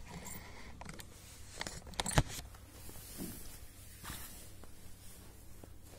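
A few light clicks and knocks, with a sharp knock about two seconds in that is the loudest sound, over a faint low background hum.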